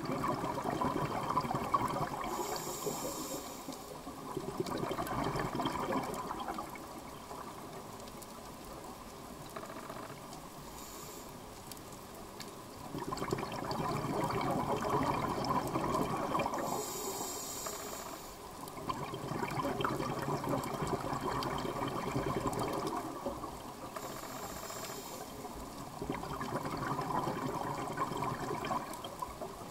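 Scuba diver breathing through a regulator underwater: a short high hiss on each inhale, then several seconds of exhaled bubbles, repeating every seven seconds or so.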